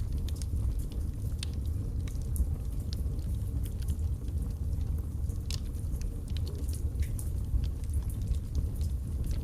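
Log fire burning in a fireplace: a steady low rumble with irregular sharp crackles and pops from the burning wood, one of them louder about five and a half seconds in.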